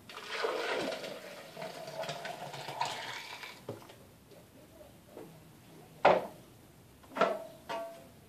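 Thick green smoothie poured from a blender jar into a glass, running for about three and a half seconds. Then a sharp knock about six seconds in and two short ringing glass clinks near the end as the jar and glass are handled.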